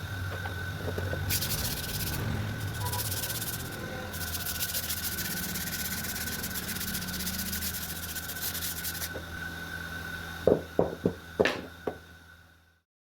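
Wood being sanded by hand, in stretches of rubbing hiss, over a steady low machine hum. About ten seconds in come five or six sharp knocks, and the sound then cuts off.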